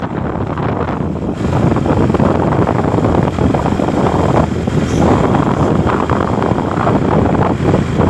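Loud, steady wind buffeting the microphone, a dense low rumbling rush.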